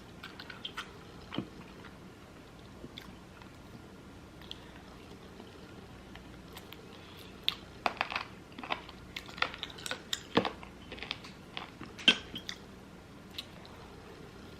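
Close-miked eating: chewing with scattered crunchy bites and mouth clicks, sparse at first and busier in the second half.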